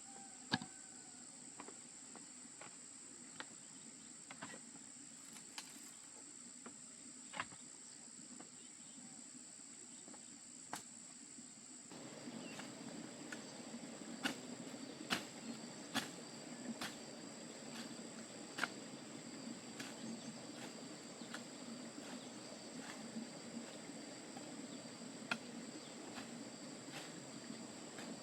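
Insects chirring steadily at a high pitch, with scattered sharp clicks and knocks. About twelve seconds in, a rustling background noise comes up under it.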